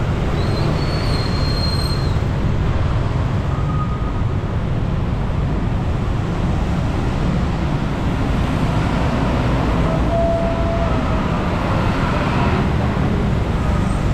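Steady traffic noise from cars and motorbikes passing on a wet road, tyres hissing on the wet surface, with a brief high whine near the start and a swell of louder traffic around ten seconds in.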